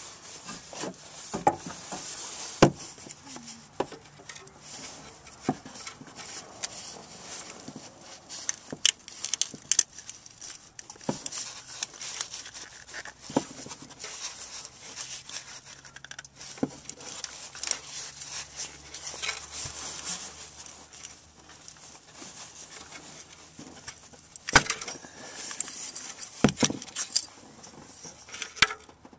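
Irregular clicks, knocks and rustling from hands and a spark plug wire remover working a plug wire boot loose on the engine, with a few sharper knocks standing out, over a steady hiss.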